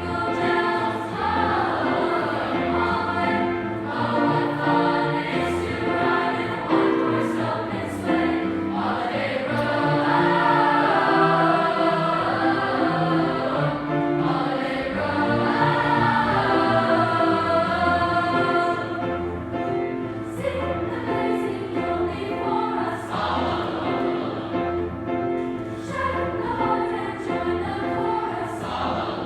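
A school choir singing a Christmas carol medley in held chords, with the voices sliding in pitch a couple of times partway through.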